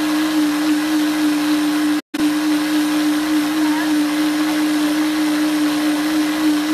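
Countertop blender running steadily at high speed, blending a poured-in liquid mixture. The sound cuts out completely for an instant about two seconds in.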